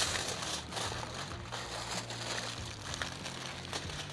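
Wrapping material crinkling and rustling in irregular small crackles as a batch of short ribs is folded up tightly to seal in the moisture, over a steady low hum.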